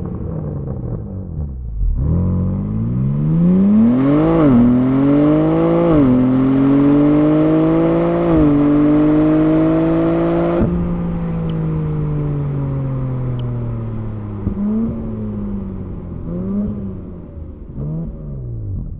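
BMW M3/M4 (G80/G82) S58 twin-turbo straight-six pulling hard through the gears: revs rise in three steps with quick upshifts, then the throttle closes about ten seconds in and the revs fall away. Near the end come three short revving blips.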